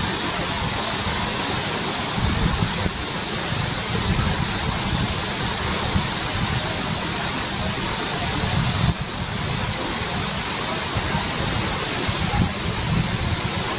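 Thusharagiri waterfall in monsoon flow: a loud, steady rush of falling water, changing slightly in tone about three times.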